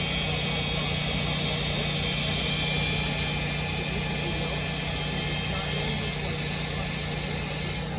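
Cat 980M wheel loader's diesel engine running steadily under work, with a steady high hiss over it that cuts off suddenly near the end.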